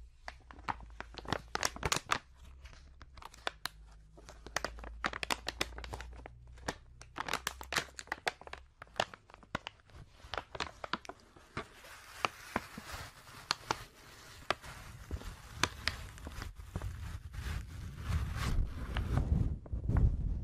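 Close-up crinkling and crackling of plastic being handled: a quick run of sharp crackles, thickening into a denser rustling hiss about twelve seconds in, with low bumps against the microphone near the end.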